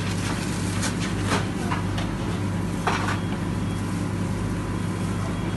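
Steady electrical hum of commercial kitchen equipment, with a few brief crinkles and taps as gloved hands handle sandwich paper.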